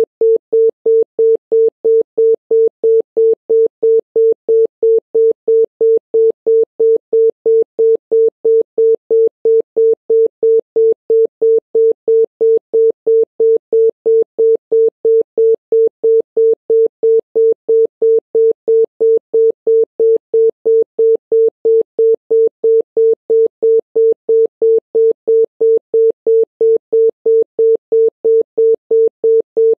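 Romanian analogue telephone busy tone: a single 450 Hz tone beeping in short, even pulses, about three a second, with a cadence of 0.15 s on and 0.18 s off. It signals that the called line is busy.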